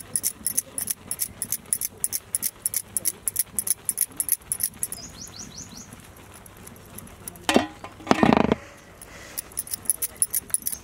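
A block of cheese rasped against a flat metal hand grater in quick strokes, about five a second. About two-thirds through, the strokes break off for a sharp knock and a brief louder rustle, then start again.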